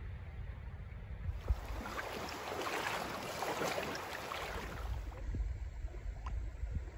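Splashing water as a hooked trout is brought to the landing net in shallow water, from about a second in until about five seconds in. Before and after it, a low wind rumble on the microphone.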